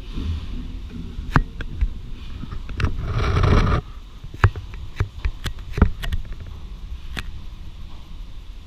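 Waddon horizontal steam engine under steam with its valve gear being worked: sharp metallic clanks and knocks at irregular intervals over a low rumble, and a hiss lasting under a second about three seconds in.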